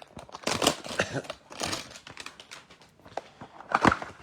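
A foil trading-card pack and cards being handled, with irregular crinkling and rustling and small clicks of cards, loudest in three brief bursts.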